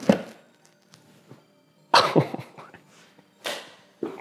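A man's short, sharp breathy exhales, three of them spaced a second or two apart, over faint background music.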